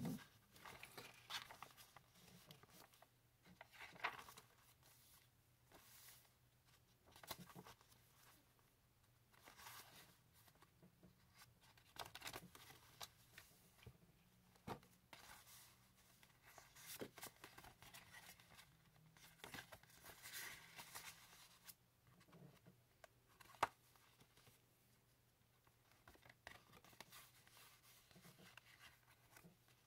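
Faint rustling and soft flapping of heavy paper pages being turned by hand in a handmade junk journal, with light brushes of fingers on the paper and one sharp click about three-quarters of the way through.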